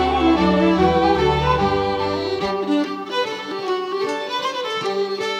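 Instrumental background music; its deep bass notes stop about two and a half seconds in.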